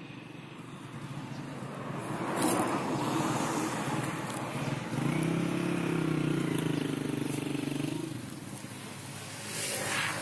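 A motor vehicle engine running. It grows louder over the first couple of seconds and holds a steady engine note for about three seconds in the middle.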